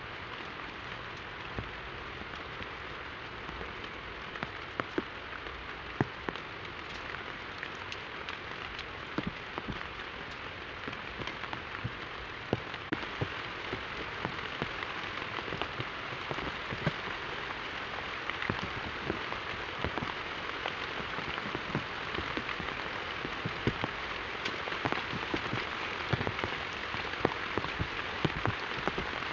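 Steady rain falling on a surface, with many close drops striking as sharp individual taps. The rain grows slightly heavier in the second half.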